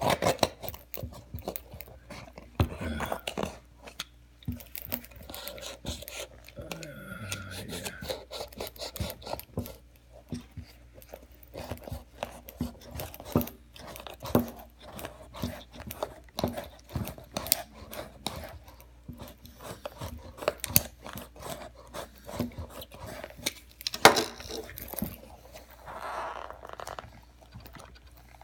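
Snap-off utility knife cutting and sawing through a Timberland boot's leather upper: irregular scraping, crunching and tearing with many small clicks and knocks, and one sharper, louder knock late on.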